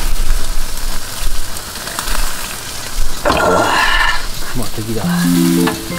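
Yakitori skewers sizzling over a charcoal grill, a steady frying hiss with small crackles and clicks, louder for a moment a little past three seconds in. Background music with held notes comes in about five seconds in.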